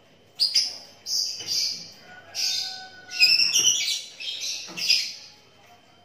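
A pair of caged lovebirds giving a run of shrill, harsh chattering calls in about five bursts, the loudest around the middle.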